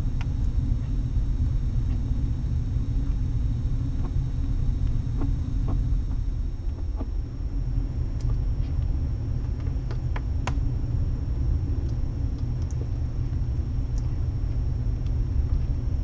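Steady low rumble of background noise with a thin high whine and a few soft ticks.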